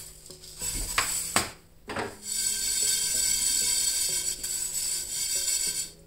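A few sharp knocks of steel kitchenware as a bowl is set down and a steel pan taken up, then a steady dry rustle of whole spice seeds being mixed by hand in the pan. Soft background music plays underneath.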